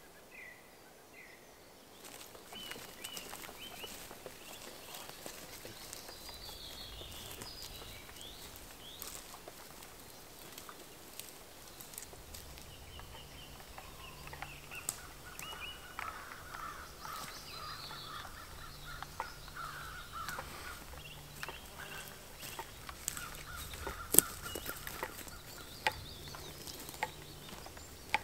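Forest ambience of wild birds: short high chirps, then from about halfway a run of rougher repeated calls. Scattered sharp clicks run through it, with one loud snap near the end.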